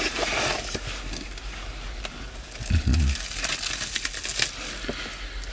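Clear plastic sandwich wrapping crinkling and crackling in short, irregular rustles as a sandwich is unwrapped and handled.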